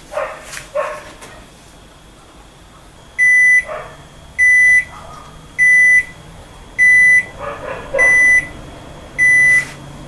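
Panasonic top-loading washing machine sounding its end-of-cycle signal: six steady high beeps, each about half a second long and a little over a second apart, starting about three seconds in. A dog barks and yips briefly near the start and in between the beeps.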